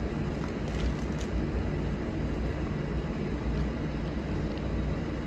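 Steady low hum of kitchen air-handling machinery, with a few faint crinkles of a plastic sous vide bag being handled about a second in.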